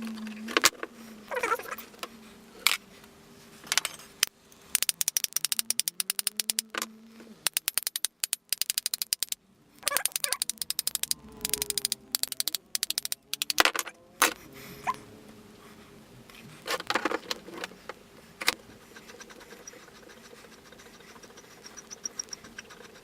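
Metal parts of an old breast drill being handled as it is taken apart: knocks, clinks and scrapes, with long runs of rapid, even clicking in the middle as the mechanism is turned.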